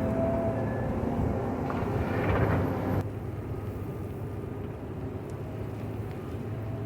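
JCB 426ZX wheel loader's diesel engine working under load while cutting gravel, swelling to a loud peak with a rush of noise about two seconds in. It then drops to a steadier, quieter run about three seconds in.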